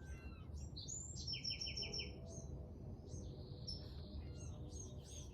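Small birds chirping, with a quick run of about five repeated notes about a second in and a buzzy note about three seconds in.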